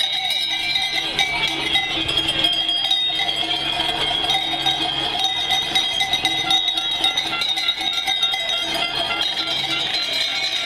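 Many cowbells ringing together without a break, shaken by a large crowd of spectators, a dense steady clanging.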